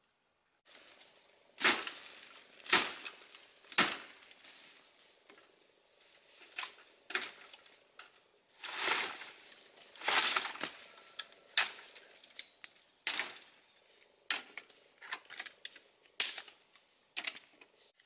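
Dry sticks snapping and cracking by hand as firewood is gathered, with sharp cracks at irregular intervals and dry brush and leaves rustling between them. The loudest cracks come about two to four seconds in.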